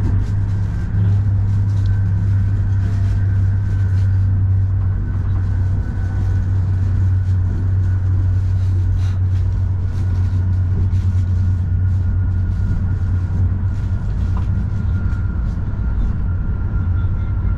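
A moving vehicle running with a steady low rumble, and a faint high whine that slowly falls in pitch over the stretch.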